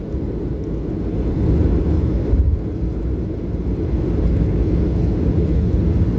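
Steady low rumble of jet engines and rushing air heard inside the cabin of a Southwest Boeing 737 airliner during takeoff and climb.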